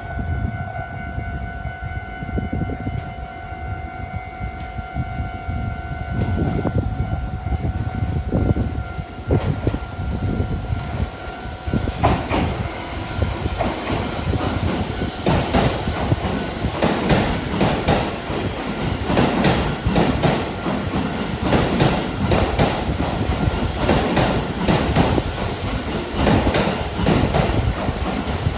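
Keisei 3000-series electric commuter train passing through a station without stopping: a low rumble as it approaches, then a run of wheel clicks over the rail joints as the cars go by from about twelve seconds in. A steady high tone sounds until the train reaches the platform.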